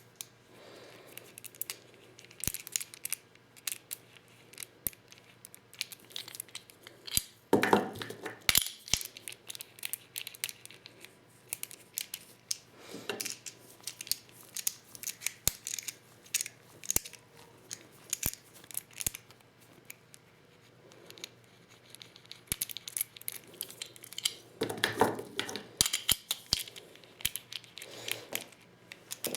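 Shotgun shells being hand-loaded with a Lee Loader kit: irregular sharp clicks and taps of plastic hulls and tool parts being handled, with a longer scraping, rustling sound about eight seconds in and again near the end.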